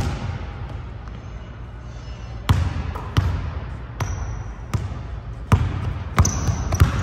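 A basketball being dribbled on an indoor court: sharp bounces at an irregular pace, a single one first, then a pause of about two seconds, then six or seven more in quick succession, each with an echoing tail.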